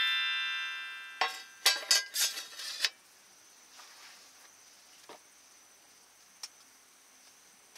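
Aluminium mess tin lid set down on a wooden camp table: a short clatter of several metal clinks about a second in. Before it, a rising chime-like musical sting fades out.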